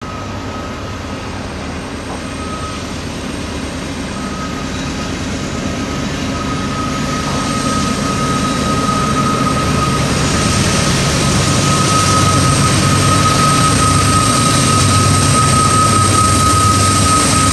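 Norfolk Southern diesel-electric freight locomotives working hard under heavy load up a grade, their engines running with a deep drone and a steady high whine. The sound grows steadily louder as the lead units approach.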